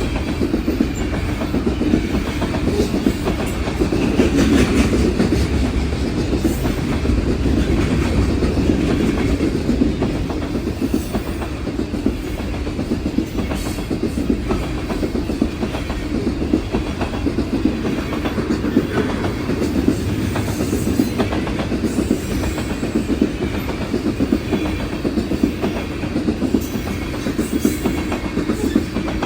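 A long freight train rolls steadily past, its cars rumbling, with many irregular clicks of wheels over the track.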